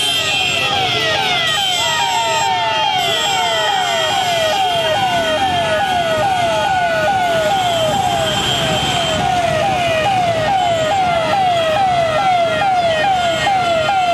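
Siren wailing fast, its pitch sweeping up and down about two and a half times a second without a break, over steady traffic noise.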